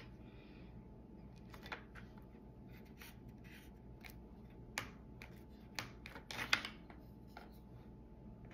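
Faint, scattered taps and rubs of wooden cutout pieces being handled and pressed together on a tabletop, with a short cluster of louder knocks about six and a half seconds in.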